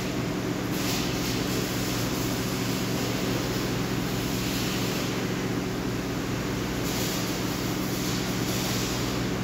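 Steady mechanical hum of running machinery: a constant low drone that does not change.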